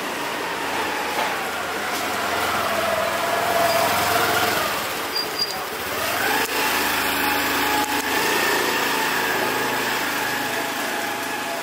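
Small motor scooter engine running close by. Its pitch sags, then climbs sharply about six seconds in as it revs.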